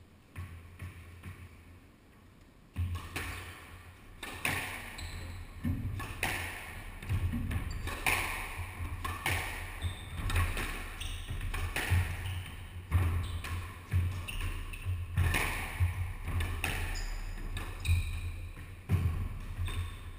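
Squash rally: the rubber ball cracks off the rackets and the court walls, a sharp smack every half second to a second, starting about three seconds in, over a steady low hum.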